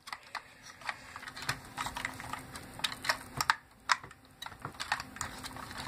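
Irregular light clicks and taps of plastic parts being handled and pressed onto an RC car chassis while a cover is worked into place, with a faint steady hum underneath.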